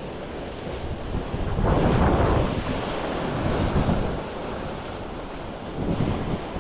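Strong wind buffeting the microphone over surf washing on the shore, the gusts swelling louder about two seconds in and again near the end.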